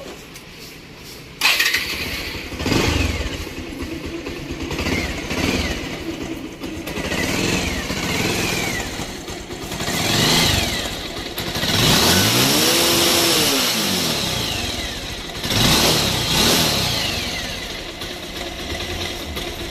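Bajaj Pulsar 180 single-cylinder engine starting about a second and a half in, then running and revved up and down several times, with one long rev near the middle. The engine sounds very rough and gravelly, which the mechanic puts down to a worn-out timing chain and clutch plates.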